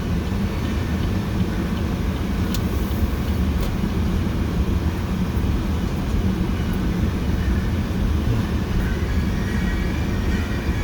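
Steady low rumble of car road and engine noise heard from inside the cabin while driving, with a couple of faint clicks early on.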